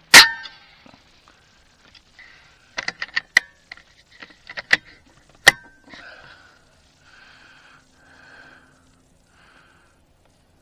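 A Vulcan 3 air rifle with a muzzle brake fires one shot just after the start: a sharp crack with a short ringing tail. About three seconds later comes a run of sharp metallic clicks as the action is worked for the next pellet, ending in a loud snap.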